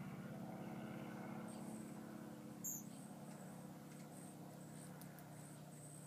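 Faint steady mechanical hum, with short high-pitched chirps repeating from about a second and a half in and one sharp high click near the middle.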